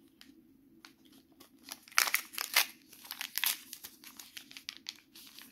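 Small plastic blind-bag toy packet crinkling and tearing as it is pulled open by hand, in irregular crackling bursts, loudest about two seconds in.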